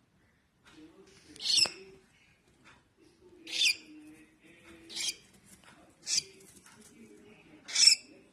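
Baby cockatiel giving five short, harsh calls spaced about a second and a half apart.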